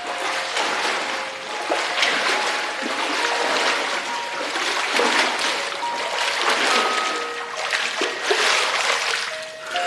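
Background music: soft held notes over a rushing, hissing texture that swells and fades about once a second.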